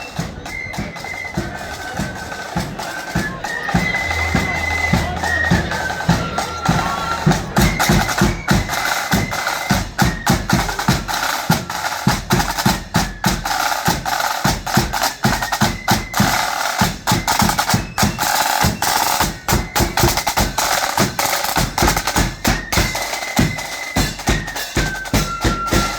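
A marching band plays a tune: snare and bass drums keep a steady, quick beat under a high melody line.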